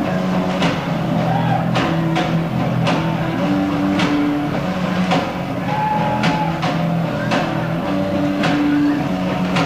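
Live rock band playing loud, heavy electric guitars over bass, with a drum kit hitting about once a second on a steady beat.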